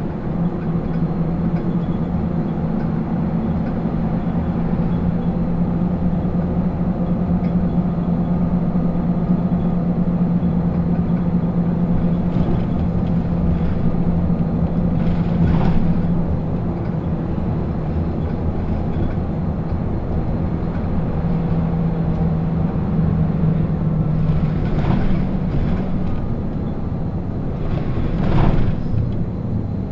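Onboard running sound of an Isuzu Erga 2TG-LV290 non-step city bus, its four-cylinder diesel engine droning steadily while the bus drives. The engine note shifts about three quarters of the way through, and there are a few brief noisy bursts, one about halfway and two near the end.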